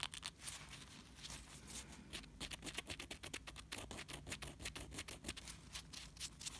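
Abrasive stick file filing a cured acrylic-gel nail sculpture: quick, short scratchy strokes, several a second, smoothing off the rough edges around the curves of the tail.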